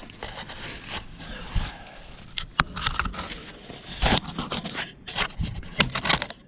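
Hand tools and metal parts being handled: irregular scraping with a run of sharp clicks and clanks, bunched about four seconds in and again near the end.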